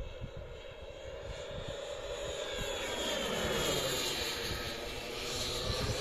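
Large-scale radio-controlled A-29 Super Tucano model aircraft flying past, its engine and propeller growing louder to a peak about halfway through. The pitch falls as it passes and climbs again near the end.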